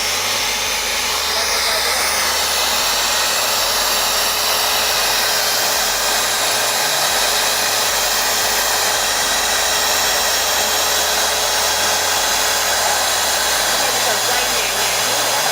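BDS MABasic 850 magnetic drill's motor running steadily at its lowest spindle speed of 110 rpm, an even whirr with one constant tone, running very smoothly.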